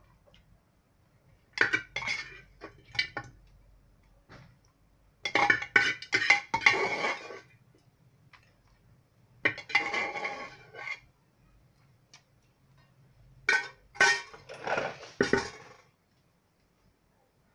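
Metal spoon scraping and clinking against a pressure cooker and a steel plate as cooked beef is spooned out, in four bursts of scraping and knocks.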